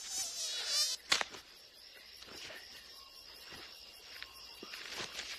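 Night insects chirping and trilling, with a loud fast warbling trill through the first second. A single sharp crack sounds about a second in.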